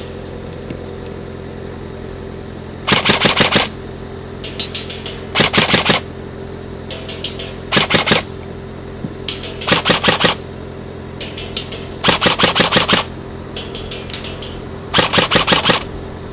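A gun firing short automatic bursts of rapid shots, about six loud bursts each under a second long. Fainter quick bursts come in the gaps between them.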